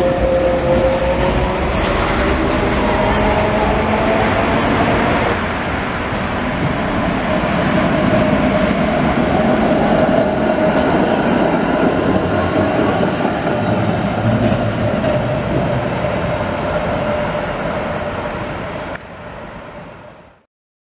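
Electric trams rolling past on steel street rails, a steady rumble with a wavering whine over it. The sound fades out near the end.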